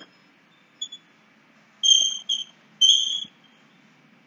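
Chalk squeaking on a blackboard while writing: a few short, high-pitched squeals of uneven length, with faint taps of the chalk between them.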